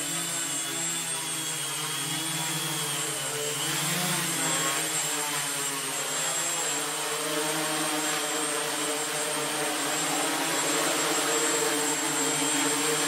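MultiWii quadcopter's four brushless motors and propellers whirring steadily in flight, the pitch wavering as the throttle is worked and swinging about four seconds in as it climbs.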